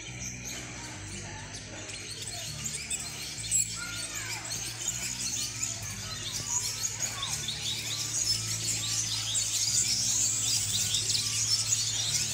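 Background music with a steady low line of changing notes, with many birds chirping over it, growing busier towards the end.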